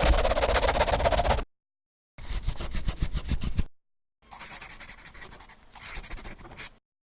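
Three bursts of fast scratching or rubbing strokes, each starting and stopping abruptly; the third is quieter.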